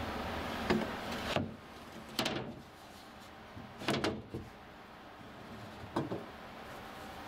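Metal tube handle of a manual bilge pump knocking and scraping as it is fitted through a slot in a wooden cockpit floor: a handful of separate clunks a second or two apart.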